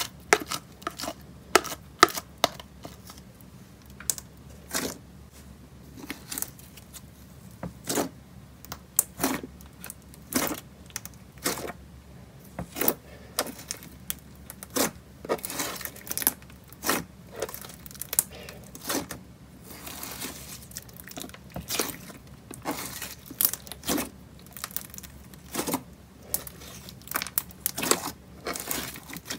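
Ramen slime with clay noodles being pulled out of a plastic cup, then stretched and squeezed by hand: a run of sharp, sticky clicks and pops at an irregular pace, a few each second.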